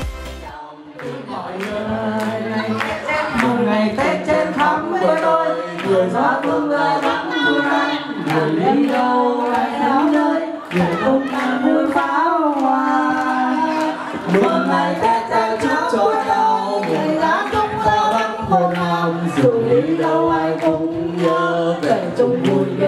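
A voice singing into a microphone over a PA, with a group of voices joining in and scattered hand claps.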